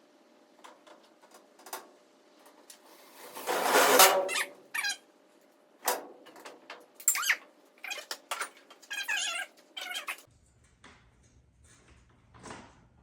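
Car door being handled and hung on a wall: knocks and clanks of sheet metal, with a loud scrape about four seconds in and a squeaky scrape near the ten-second mark.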